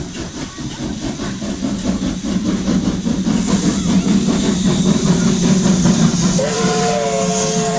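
Two steam locomotives, Polish Tkh tank engine No. 2944 'Hotspur' leading USA S160 No. 5197, working hard on a departing train: rapid, even exhaust beats with steam hiss, growing louder as they come past. About six seconds in, a steam whistle sounds a steady chord of several notes and is held.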